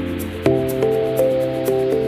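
Background music: held melodic notes over a low bass with a light ticking beat, changing chord about half a second in.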